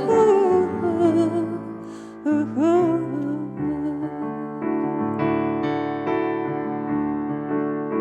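A singer's voice trails off in wavering, sliding notes over keyboard accompaniment, then the keyboard carries on alone, playing chords struck again every half second or so.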